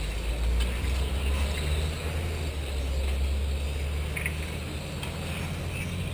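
A steady low rumble with the faint, high whine of 1/10-scale electric RC Formula 1 cars lapping the track.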